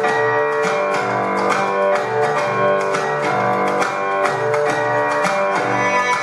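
Instrumental belly dance music: a plucked string instrument playing a melody over a steady low beat.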